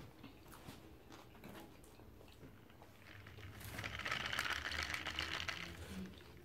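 Ice rattling in a plastic cup as the cup is lifted and swirled close to the microphone. It sets in about halfway through as a dense, clicking rattle and stops just before the end. Before it there are only a few faint clicks.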